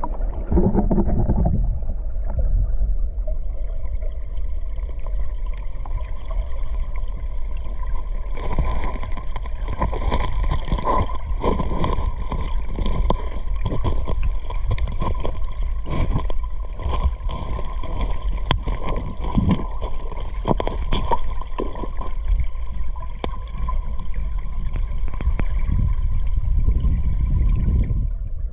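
Mountain stream heard underwater through a GoPro in its housing: a steady low rumble of flowing water with many scattered clicks and ticks, thickest in the middle, over a faint steady whine.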